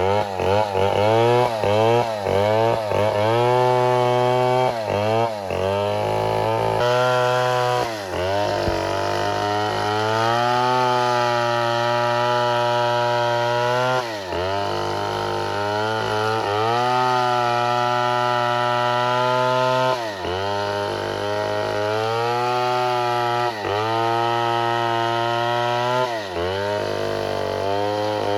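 Two-stroke chainsaw engine revved up and down rapidly several times, then held at high revs in long stretches, dropping back briefly about every six seconds.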